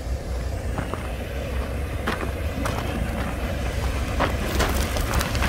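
Wind rumbling on the microphone, with footsteps crunching on a gravel path; the sharp crunches come about two seconds in and again over the last second and a half.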